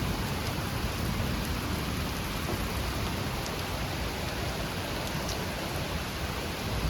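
Heavy rain falling steadily: a dense, even hiss with a low rumble beneath it.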